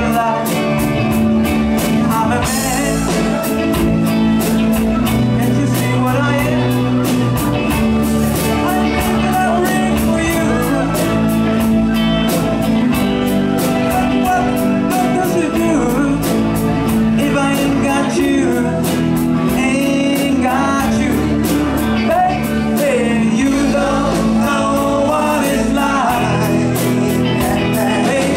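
Live rock band playing: a lead vocal over electric guitar, bass guitar, keyboards and a drum kit keeping a steady beat.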